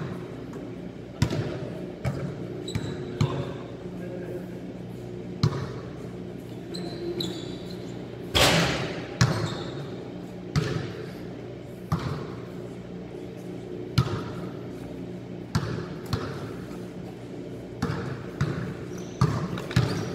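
Basketballs bouncing on a hard indoor court floor: irregular thuds every second or two that echo around a large hall, with a louder, longer hit about eight seconds in. A steady low hum and faint voices lie underneath.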